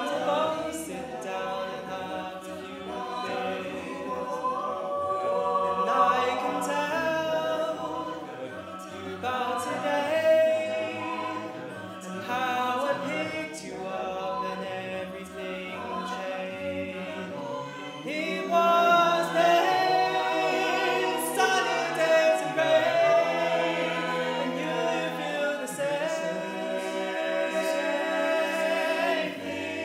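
A cappella vocal group singing in harmony, several voices holding chords together with no instruments.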